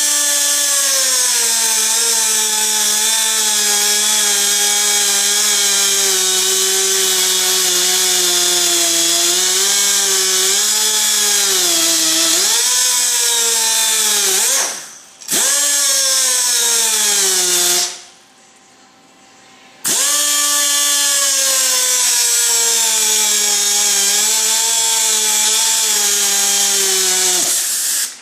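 Handheld electric power tool running in three long bursts, cutting pad material. Its motor whine spins up, sags lower in pitch as the cut loads it, and winds down between bursts, with short stops about 15 seconds in and again from about 18 to 20 seconds.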